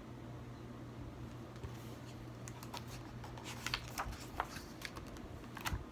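Pages of a hardcover picture book being turned and handled: a run of short, crisp paper clicks and rustles in the second half, over a low steady hum.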